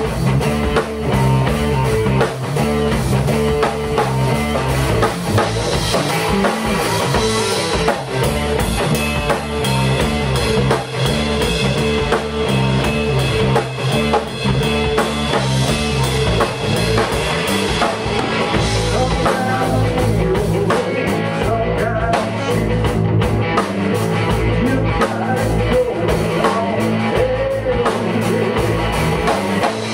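A rock band playing live: drum kit with cymbals, electric bass and electric guitar together in a steady groove.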